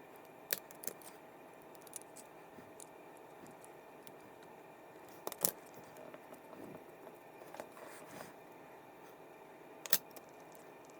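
Small hard parts of a fishing reel clicking and tapping as it is taken apart by hand, with three sharper clicks: about half a second in, about halfway through and near the end. A faint steady hum lies underneath.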